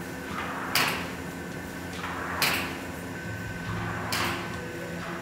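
A screen-printing squeegee dragged across an inked silk-screen frame in three scraping swishes, about one and a half seconds apart, over a faint steady hum.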